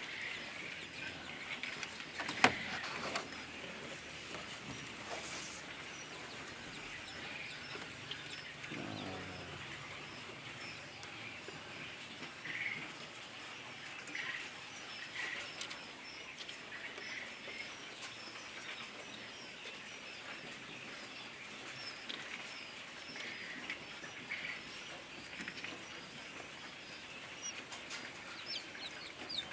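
Newly hatched quail chicks peeping: many short, high cheeps, overlapping and repeated throughout. A single sharp click sounds about two seconds in.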